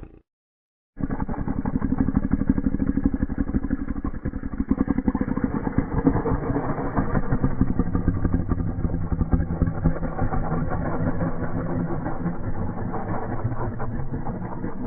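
Cartoon sound effect of an engine running, a rapid, steady putt-putt that starts about a second in.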